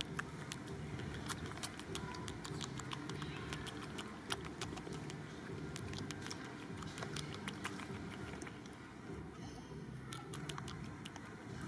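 Outdoor background noise: a steady low rumble with many irregular sharp clicks and ticks scattered through it.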